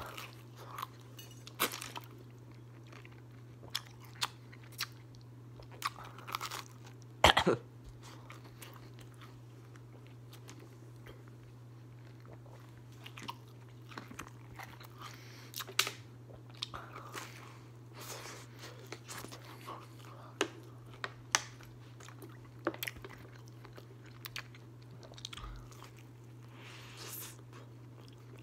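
Close-up chewing and biting of pizza crust, eaten fast, with irregular crisp crunches. A sharp knock about seven seconds in is the loudest sound, and a steady low hum runs underneath.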